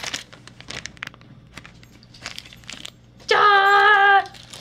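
A foil blind-bag packet crinkling and tearing as it is ripped open by hand. About three seconds in, a child's voice holds one high, steady note for about a second, the loudest sound here.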